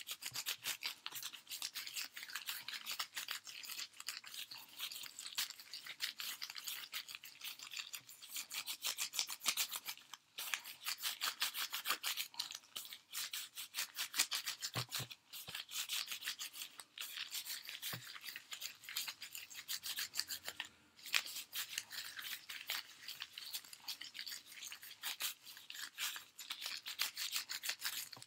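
Hands kneading two-part dental impression putty: fast, continuous rubbing strokes, with a few brief pauses.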